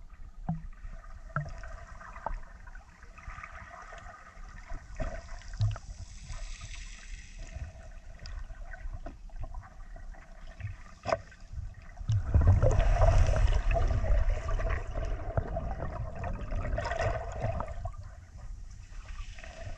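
Underwater sound picked up by a camera in its waterproof housing: muffled water movement and gurgling with a few faint clicks. About twelve seconds in, it swells into a louder low rush that eases off near the end.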